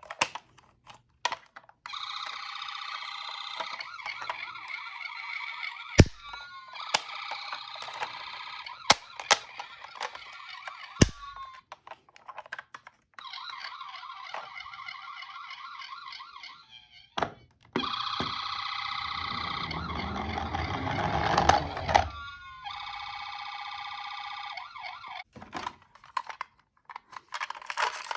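Electronic ambulance siren sound from toy minicars, going in four separate bursts of a few seconds each with sharp clicks and knocks in the gaps between them. Under the third burst a low rumble rises and grows louder.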